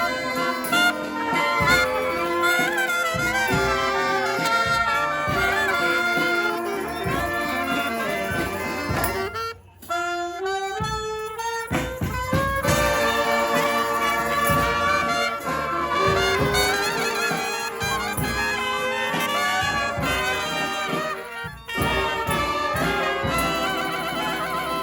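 Second line brass band playing: several horns together over drums. About ten seconds in, the band drops out for a couple of seconds while a lone horn line climbs in steps, then the full band comes back in.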